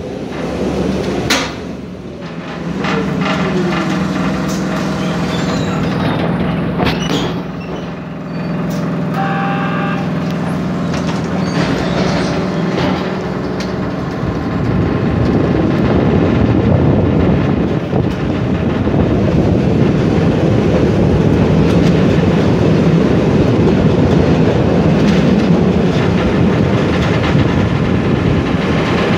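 ZET type 201 tram running along its track: wheels rolling on the rails with a few sharp clicks and knocks, and a steady motor hum in the first half. From about halfway on the running noise grows louder, with air rushing past the open window.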